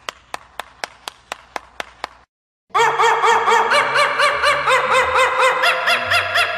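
Hands clapping, about four sharp claps a second for roughly two seconds. After a brief gap comes a fast, rhythmic snickering laugh that repeats about four times a second.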